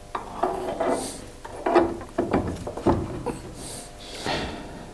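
Metal knocking and scraping as the hub carrier with its brake disc is worked onto the splined outer end of a new drive shaft, with a few sharp clunks in the middle and rubbing in between.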